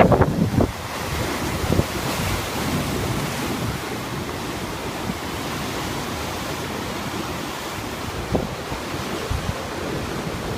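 Heavy storm surf from a rough, typhoon-stirred sea crashing against rocky sea cliffs, a steady roar of breaking water. Wind buffets the microphone in gusts, hardest in the first second.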